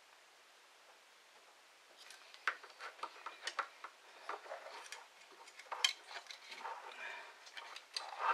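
Small, sharp clicks and taps of a soldering iron, wires and a drill's switch being handled on a workbench while the switch wires are soldered, starting about two seconds in and coming at an irregular rate.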